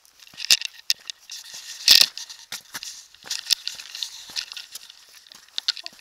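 Irregular crackling and scuffing from footsteps on a stone flagstone path and from fingers rubbing on the hand-held camera, with a loud scrape about two seconds in.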